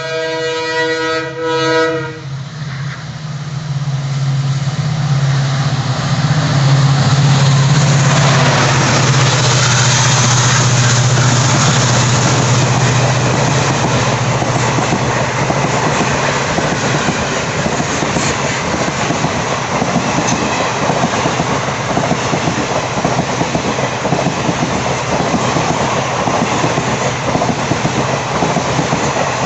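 WDP-4D EMD diesel locomotive sounding its horn, a chord of several tones that cuts off about two seconds in. The locomotive then passes at speed under full throttle, its engine hum building to a peak, followed by the coaches' wheels clattering steadily over the rails.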